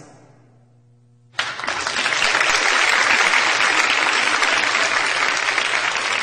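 Audience applause that breaks out suddenly about a second and a half in, after a brief quiet, and carries on steadily.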